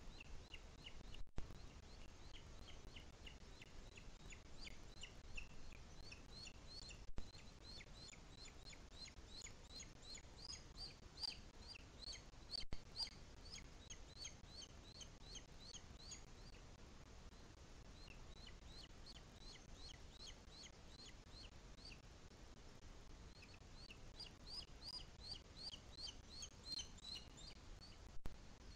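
Booted eagle chick giving thin, high-pitched begging calls in rapid series, several notes a second, while being fed. The calls come in two long bouts with a short break in the middle. A few brief clicks stand out above them.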